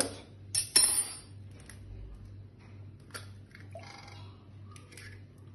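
An egg knocked against the rim of a stainless steel saucepan: two sharp cracks less than a second in, then faint clicks and rustles as the shell is pulled apart, over a faint low hum.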